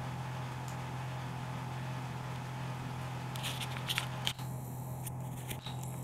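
A steady low hum, with a cluster of short clicks and rustles from about three and a half to four and a half seconds in, and two more near the end.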